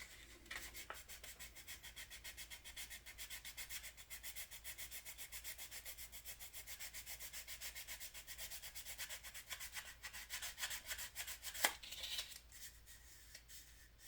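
Sandpaper rubbing back and forth over dried filler putty on a plastic model car body, in quick, even strokes. There is one sharp click about three-quarters of the way through.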